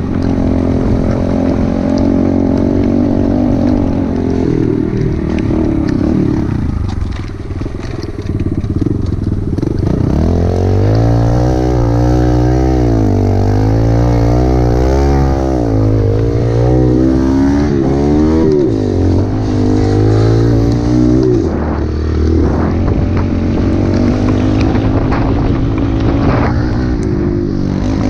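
Dirt bike engine running while riding a trail, its pitch swinging up and down repeatedly through the middle as the throttle is opened and closed.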